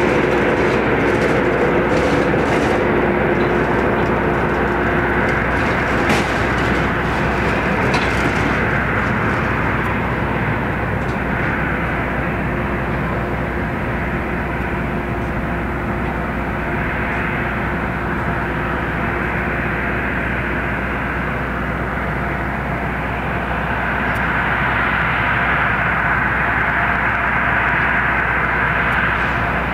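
Turbofan engines of an Airbus A320-family airliner at taxi thrust: a steady rumble with a whine over it, which grows a little louder over the last few seconds as the jet turns.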